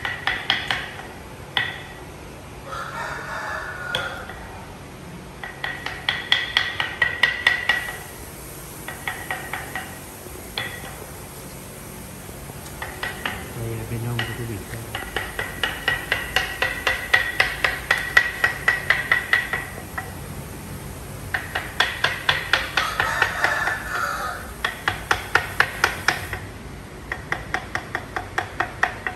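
Rapid hammering: runs of sharp, ringing strikes, about five or six a second, coming in bursts of a few seconds with short pauses between.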